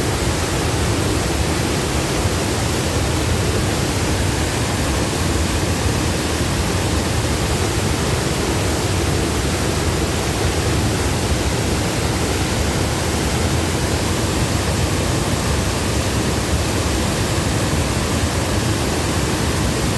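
Waterfall: a loud, even rush of falling water that holds steady throughout.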